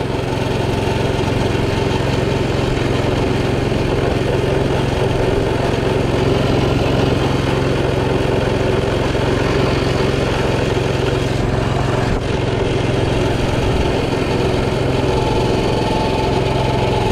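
Coleman CT200U minibike's small single-cylinder four-stroke engine running steadily at a constant, raised speed, its throttle stuck open so the engine will not drop back to idle.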